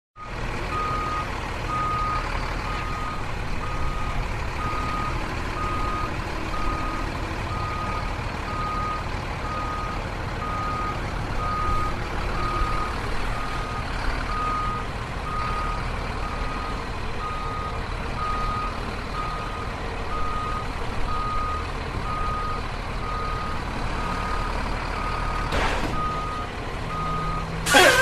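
A reversing vehicle's backup alarm beeps steadily, a single tone about once a second, over a low engine rumble. A loud, sudden burst of noise comes near the end.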